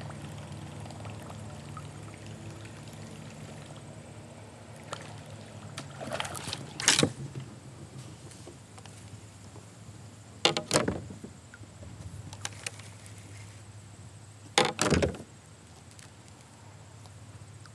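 Kayak paddle strokes splashing in the water, three strokes a few seconds apart, with quieter water dripping and lapping between them.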